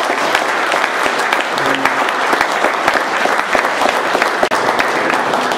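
Audience applauding: many hands clapping steadily and densely together.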